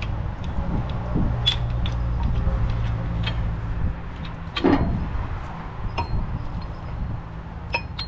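Hydraulic hose fitting being crimped on a portable crimping press: a steady low machine hum with light metallic clinks and clicks of the tool, and a louder knock about halfway through. The hum eases a little after the middle.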